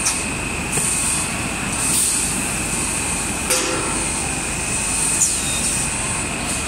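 PE stretch film machine running: a steady mechanical rumble and hiss with a constant high whine, broken by a few sharp clicks.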